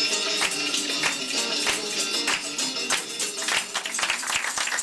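Dance music with hand castanets clicking along in a quick rhythm, breaking into a rapid run of clicks near the end.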